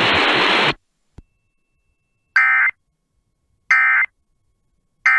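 Radio hiss cuts off, then three short, identical bursts of buzzy digital data tones about a second and a half apart: the EAS/SAME end-of-message code that closes a weather radio warning.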